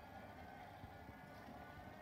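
Faint steady motor hum from an animated Grim Reaper Halloween prop as it moves.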